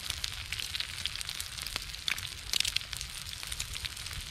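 Eggs frying in rendered lard in a thick-walled aluminium skillet over a small wood-burning stove: a steady sizzle with dense crackling pops, a little louder about two and a half seconds in.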